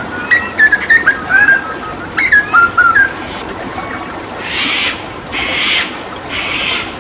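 Hooded butcherbird singing a run of clear whistled notes with sliding, stepping phrases for about three seconds, then a series of harsh rasping bursts about once a second.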